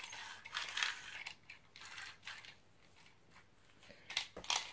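Rustling and light plastic clicks as Beyblade toy parts and packaging are handled, in a cluster over the first second and a half and again near the end, with a quiet stretch between.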